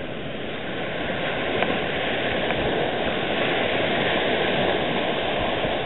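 Steady rushing noise of surf washing onto a sandy beach.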